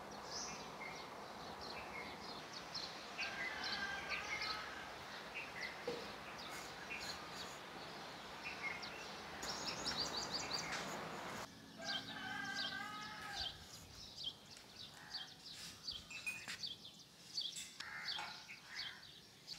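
Morning birdsong: many small birds chirping and calling throughout, with a rooster crowing once about twelve seconds in. A steady hiss lies under the first half and cuts off suddenly.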